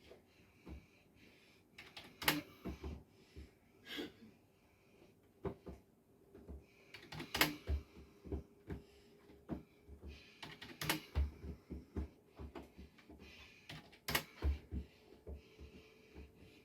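Irregular sharp clicks and taps, a few a second, some with a dull thump beneath.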